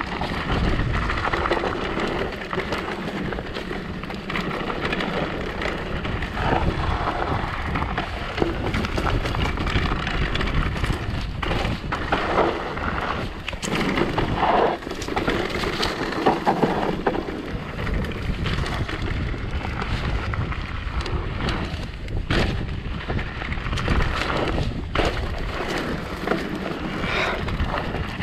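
Mountain bike ridden over a rough dirt trail: wind buffeting the microphone, with the tyres and the rattling bike making an irregular rumble and scattered knocks.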